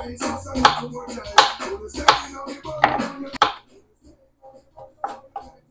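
A kitchen knife cutting on a cutting board, with sharp knocks less than a second apart, over background music. The music stops about three and a half seconds in, leaving only a few faint taps.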